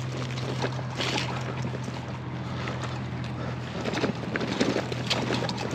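Bicycles rolling over a rough field track, with dense crackling and rattling from tyres and frames. A steady low hum and some wind on the microphone run underneath.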